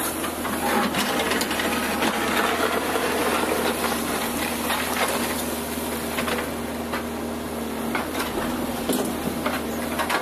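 JCB loader's diesel engine running steadily, with irregular clanks and scrapes from the bucket loading and pushing material.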